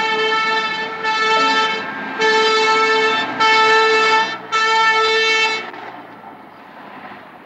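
A horn blowing five blasts in a row, each about a second long with short breaks between, all on one steady high note; it stops a little before the end.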